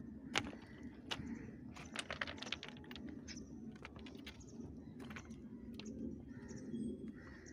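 Footsteps crunching on loose track ballast stones, a run of irregular clicks and crunches over a low rumble.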